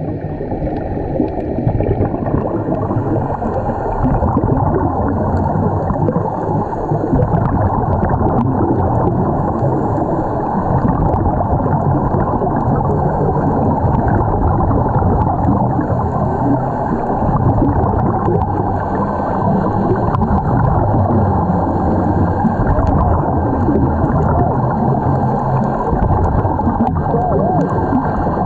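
Muffled underwater sound heard through a camera's waterproof housing: a steady low rush of water with faint clicks.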